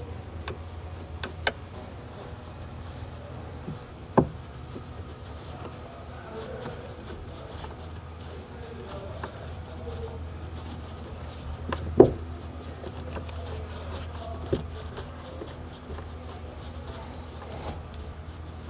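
A T-handle hex key driving small bolts into a plastic roll bar cover: a few sharp clicks and taps of tool and hardware, the loudest about twelve seconds in, over a steady low hum.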